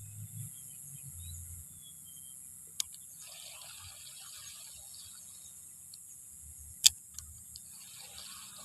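Faint outdoor ambience by the water, with a few short bird chirps in the first two seconds and a sharp click about seven seconds in.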